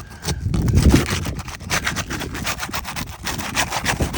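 A flat pry tool scraping and prying under asphalt roof shingles to break their seal strips, in rapid rasping strokes after a low rumble about a second in. The shingles are brittle and tearing as they are worked loose, the sign that they fail a repairability test.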